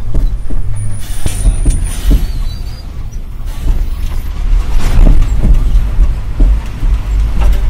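Inside the cab of a moving Ashok Leyland 1613 diesel truck: a steady low engine drone with the cab rattling and creaking over the road. An oncoming bus rushes past close alongside about four to five seconds in.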